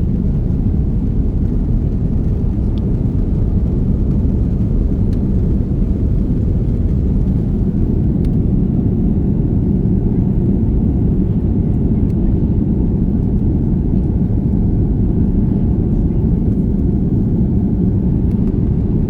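Airliner's jet engines and rushing air during takeoff, a loud steady low rumble that holds without change.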